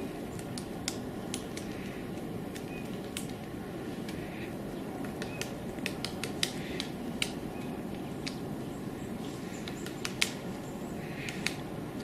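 Woodpecker pecking at tree bark: irregular sharp taps, a few loud ones, over a steady low rumble of background noise.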